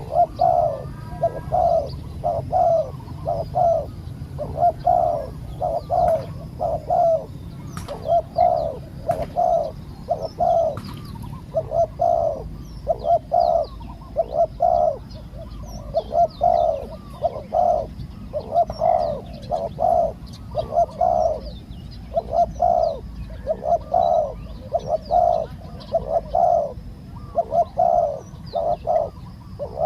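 Spotted doves cooing over and over, each phrase a group of two or three low, hollow coos repeating without pause. Faint high chirps of small birds sound behind them.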